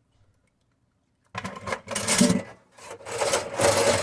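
Dishes being washed by hand at a kitchen sink: two loud, rough stretches of noise, each a little over a second long, starting about a second in.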